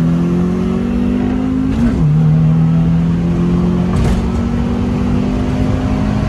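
Car engine under hard acceleration, heard from inside the cabin during a drag run. Its pitch climbs steadily, drops sharply at an upshift about two seconds in, then climbs again through the next gear.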